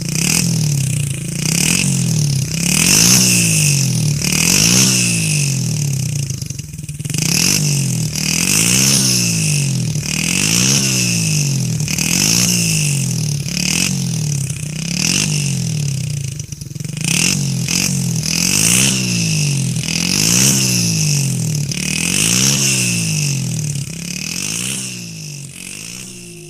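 Motorcycle engine revving up and dropping back over and over, a rising and falling pitch about every second and a half.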